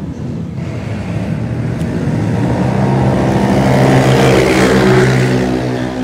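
Two motorcycles, one a scooter, accelerating hard down a drag strip and passing by. The engines grow louder to a peak about four to five seconds in, then fade as they pull away.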